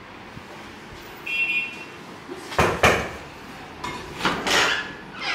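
Glass door being opened by hand: two sharp knocks of the handle and latch about halfway through, then a swish as the door swings open. A short high beep a little over a second in.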